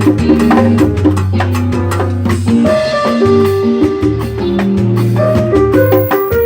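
A live band playing a groove together: electric bass, keyboard, guitar, drum kit and hand percussion, with held bass notes under sustained chords and busy percussion strikes.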